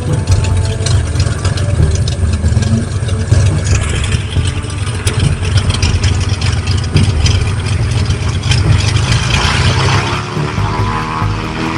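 Small agricultural aircraft's propeller engine running steadily at idle during refilling, its sound starting to sweep and shift in the last couple of seconds.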